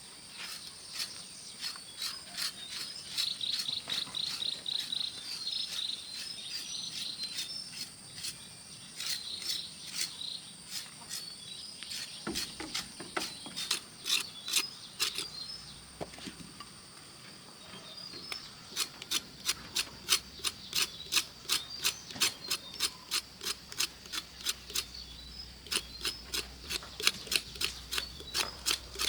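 Quick, even knocks, about three a second, pausing briefly a little past halfway, over a steady high insect drone with chirps.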